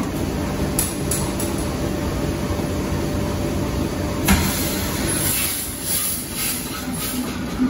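Heavy stationary engine running steadily with a dense low mechanical rumble; the sound changes abruptly about four seconds in.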